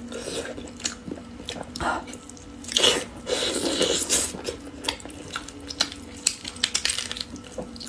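Close-miked eating sounds of biting into and chewing a sauce-braised duck leg: irregular wet, sticky mouth sounds and smacks.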